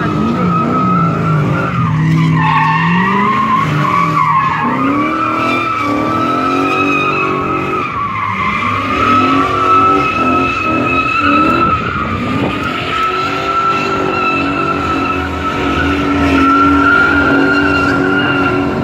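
A car doing donuts, its tyres squealing in a steady high screech while the engine revs rise and fall underneath.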